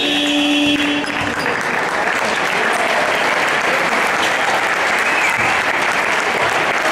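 Gym scoreboard buzzer sounding a steady horn tone, ending about a second in, likely the end-of-quarter buzzer, followed by the crowd applauding throughout.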